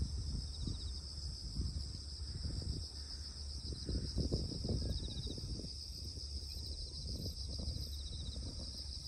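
Steady high chirring of crickets and other insects, with short pulsed trills now and then, over an uneven low rumble.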